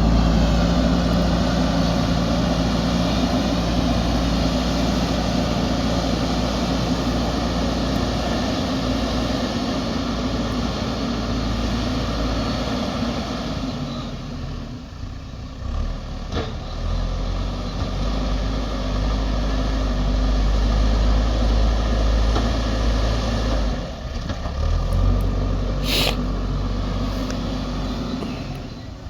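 JCB backhoe loader's diesel engine running while the machine pushes, its level easing off about halfway and again later before picking back up. A short hiss near the end.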